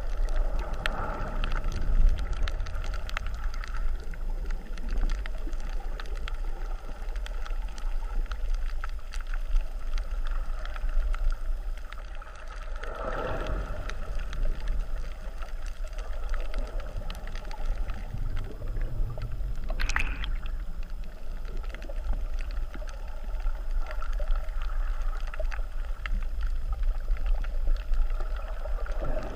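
Underwater surge churning against a reef, heard from inside a GoPro's waterproof housing: a steady low rumble under constant clicking and crackling of bubbles. It swells into a rush of water a little under halfway through, with another short surge about two-thirds of the way in.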